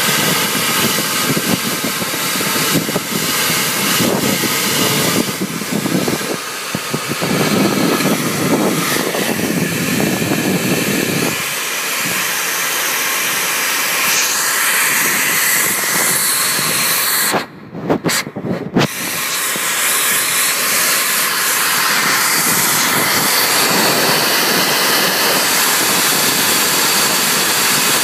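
Vacuum running with a steady loud rush of air. For roughly the first eleven seconds a dense crackle of debris rattles up the hose, then the hiss runs smoother, with two brief cut-outs a little past the middle.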